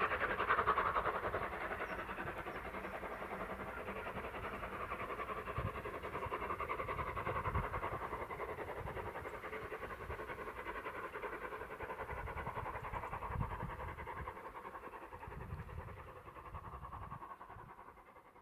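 Steam locomotive exhaust, the LMS Jubilee Class 4-6-0 No. 45596 Bahamas working a train, its rapid chuffing fading steadily as it pulls away into the distance. Wind buffets the microphone with low rumbles.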